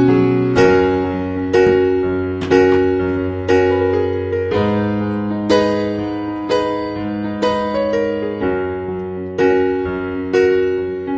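Slow background piano music, with a note or chord struck about once a second and left to ring.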